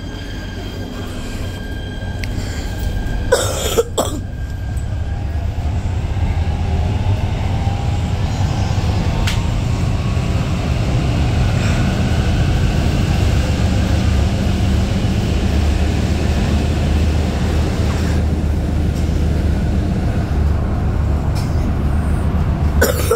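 Siemens B80 light rail car heard from inside, pulling away and gathering speed: a low running rumble of wheels on rail that grows louder over the first several seconds, with a faint rising whine as it accelerates. Two brief loud sharp noises come about three and a half and four seconds in, and another near the end.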